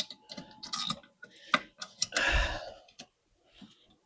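Scattered light clicks and a short rustle a little past two seconds in, from plastic wiring-harness connectors and loom being handled.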